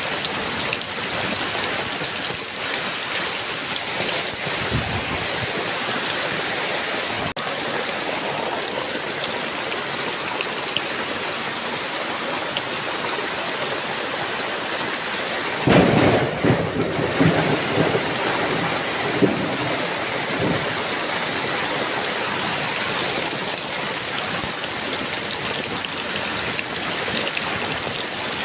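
Heavy rain falling steadily with a hiss. About halfway through, a rumble of thunder swells up and rolls on for several seconds before fading back into the rain.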